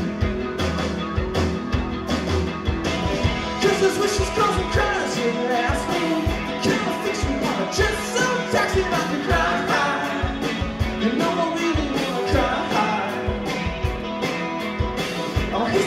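Live rock music from an electric guitar and a drum kit played together, with a busy drum beat.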